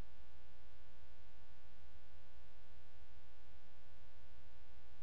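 Steady electrical hum with a stack of evenly spaced buzzing overtones, and nothing else.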